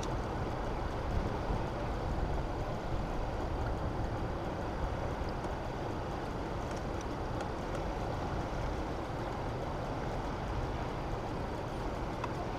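Steady rushing roar of water pouring through a dam's open spillway gates, with wind noise on the microphone.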